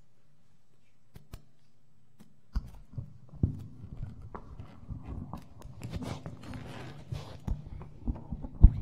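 A low steady hum with two faint clicks, then from about two and a half seconds in, irregular rustling, knocks and thumps as embroidered rumala cloths are handled and smoothed over the palki close to a microphone, with footsteps. A sharp knock comes near the end.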